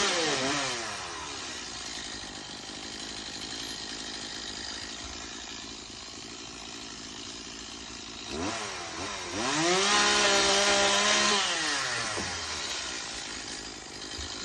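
Chainsaw engine dropping from a rev to a steady lower running speed for several seconds, then revved up again about eight seconds in, held high for a couple of seconds and easing back down.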